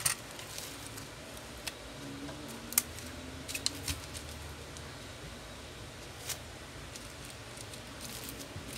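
Scattered light clicks and taps as a disassembled phone and plastic pry picks are handled on a bench mat, the sharpest about three seconds in.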